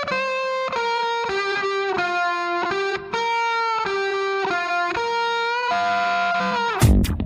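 Background music: an electric guitar plays a melody alone, in held notes that change about twice a second. Near the end the notes slide down and the full band with drums comes back in.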